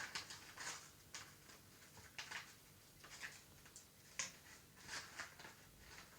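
Faint, irregular rustling and crinkling of toy packaging being handled and pulled at while someone tries to open it.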